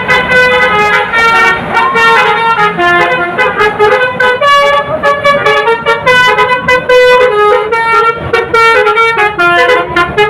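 Indonesian bus 'telolet' horn, a set of air horns playing a loud, fast melody of short tooted notes that step up and down in pitch.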